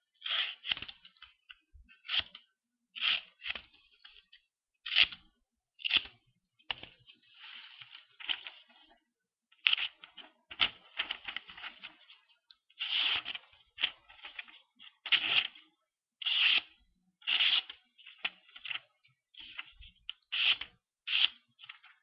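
Freshly sharpened knife slicing through thick cardboard: about twenty short, crisp cuts, roughly one a second, with a couple of longer drawn slices.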